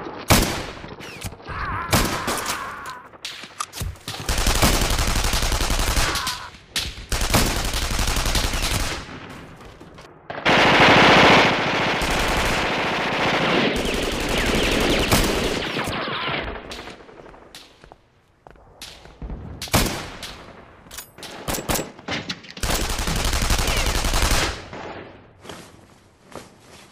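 Gunfire sound effects in a running firefight: long machine-gun bursts and single shots, coming on and off, with brief lulls.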